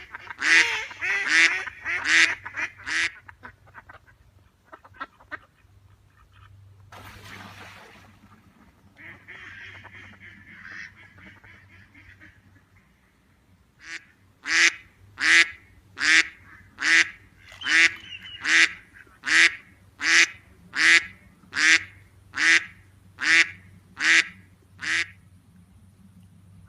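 Ducks quacking: a quick run of loud quacks, then a few faint ones and a lull, then a long even series of about fourteen loud quacks, each under a second apart.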